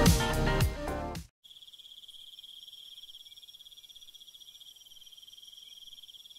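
Background music that stops abruptly about a second in, followed by a steady, high-pitched insect trill with a fast pulse.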